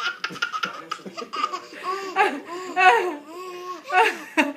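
A baby laughing: quick breathy bursts of laughter, then longer high, pitched laughing squeals in the middle, and another hard burst of laughter near the end.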